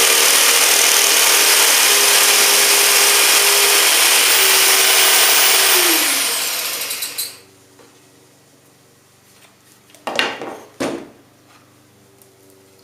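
Jigsaw cutting through plywood, its motor whine steady under the rasp of the blade. About six seconds in the saw is switched off and the motor winds down, falling in pitch until it stops. A few short knocks follow near the end.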